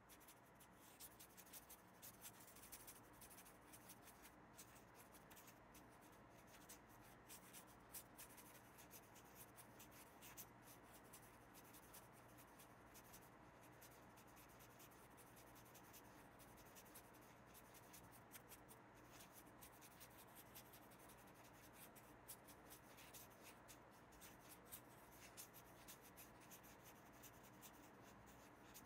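Faint scratching and rubbing of a fine paintbrush on textured watercolour paper: an irregular run of small ticks and scrapes.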